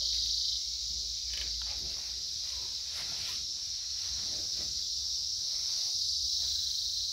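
Steady chorus of insects, a continuous high-pitched shrill drone, with a few faint rustles beneath it.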